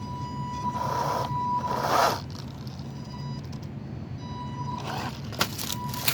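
Stock brushed motor of a Wltoys 124018 RC crawler whining steadily at low throttle as it crawls slowly, the whine fading out and returning. Two short scrapes of tires over rough ground come about one and two seconds in, and a few sharp clicks near the end.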